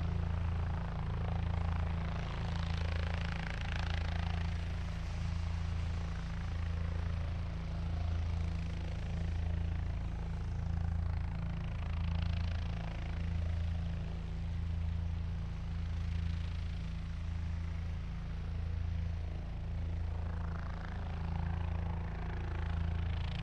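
Helicopter in flight: a steady, low rotor throb that pulses slowly and evenly, with a rushing noise above it that swells and fades every several seconds.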